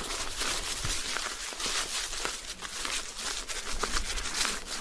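Irregular crunching and crackling with a steady hiss, the sound of movement over the trail's surface.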